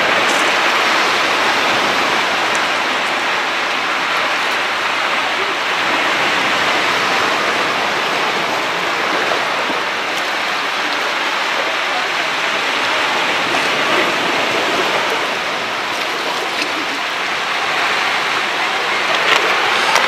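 Storm surf breaking and washing over the rocky shore: a steady rushing wash that swells and eases gently.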